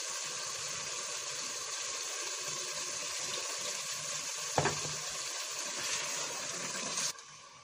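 Water poured into a pot of potatoes and black chickpeas frying in oil: a steady hiss of splashing and sizzling that cuts off suddenly about seven seconds in. A single knock about four and a half seconds in.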